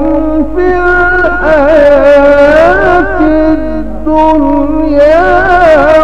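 Melodic Quran recitation in tajweed style by a male qari: one long chanted line, ornamented, its pitch gliding and wavering, with only brief breaks.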